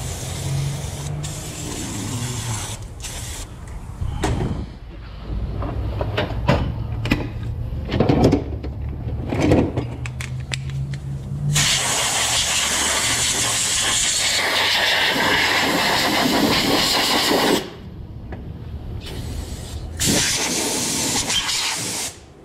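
Aerosol brake cleaner spraying at the start, then a compressed-air blow gun hissing: short bursts, then a long blast of about six seconds and a shorter one near the end, blowing the cleaner off the underside of the truck. A low hum runs under the first half.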